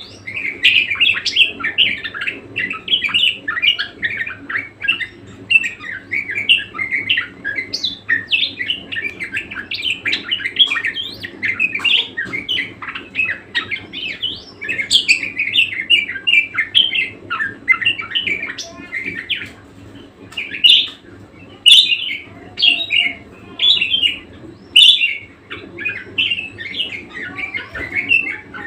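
Budgerigar warbling in a long, fast stream of chirps and chatter, with a few louder, sharper notes about three quarters of the way through.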